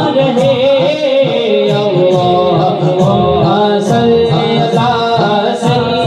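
Devotional music: a melody over a steady beat of about two strokes a second.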